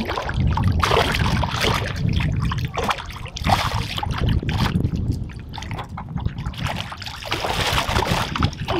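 A hooked common carp of about 15 lb thrashing at the surface as it is drawn over the landing net: irregular splashing and sloshing of water, heaviest near the end, over a low rumble.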